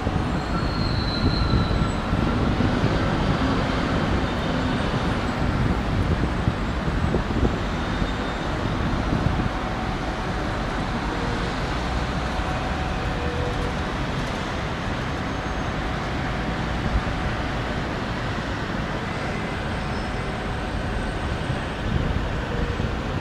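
Steady city traffic noise rising from the streets below, with wind rumbling on the microphone.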